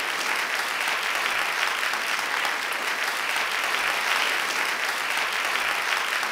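Crowd applause: many hands clapping in a steady, even wash.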